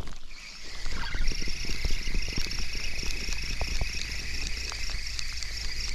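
Spinning reel being cranked to retrieve the line, a steady whir that starts about a second in, with rain falling as many light ticks and a low rumble underneath.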